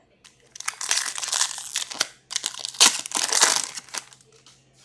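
Hockey card pack wrapper being torn open and crinkled by hand: two long stretches of crackling, the first starting about half a second in and the second, after a short break, stopping about a second before the end.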